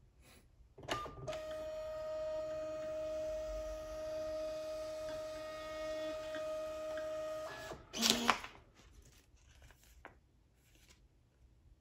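Brother QL-1110NWB thermal label printer feeding out a 4x6 paper label: a click, then about six seconds of steady motor whirring with a high hum. About eight seconds in the automatic cutter snaps the label off, followed by faint paper rustling.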